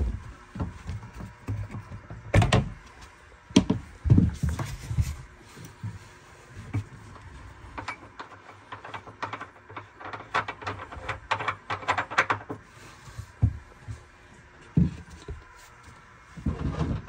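Irregular knocks, thumps and clattering of things being handled, with a run of quick rattling clicks about ten to twelve seconds in.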